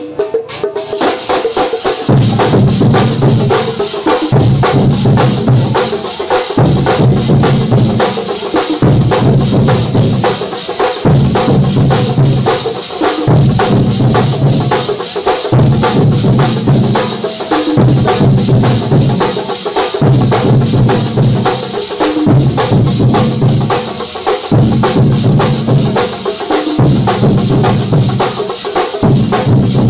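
A Kerala percussion troupe playing slung chenda drums with sticks in a fast, driving ensemble rhythm. Cymbals keep up a steady shimmer over it, and a deep beat repeats about every two seconds. The full ensemble comes in about two seconds in.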